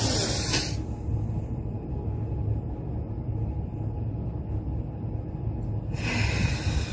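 A person's deep breath drawn in at the start, then held for about five seconds with only a low steady hum beneath, then let out in a long breath through the mouth near the end.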